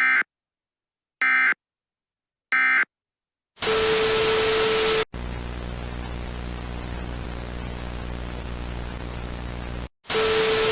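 Three short bursts of Emergency Alert System digital data tones, about a second and a half apart: the end-of-message signal closing the alert. Then a loud burst of static with a steady tone gives way to quieter, steady static hiss with a buzzing hum, and a second loud burst of static with the tone comes near the end.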